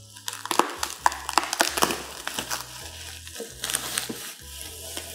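Plastic bubble wrap crinkling and crackling as hands pull and bunch it, a rapid run of sharp crackles that thins out after about four seconds. Background music with a low bass line plays underneath.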